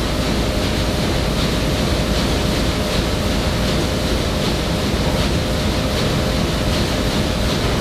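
Sheet-fed offset printing press running: a loud, steady mechanical noise with a faint steady hum in it.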